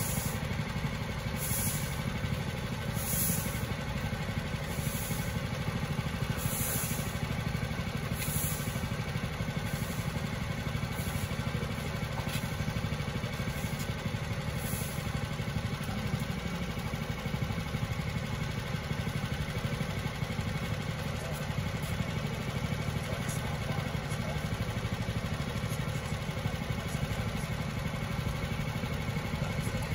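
Engine idling steadily, with repeated scraping strokes about every second and a half during the first half.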